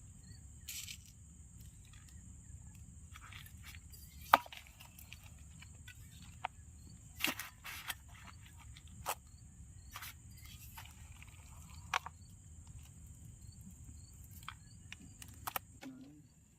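Crickets chirping steadily over a low rumble that fades out near the end, with scattered knocks and clicks of things being handled, the sharpest about four seconds in.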